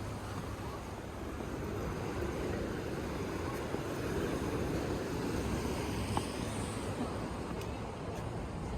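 Surf washing onto the beach: a steady rushing that swells around the middle and then eases.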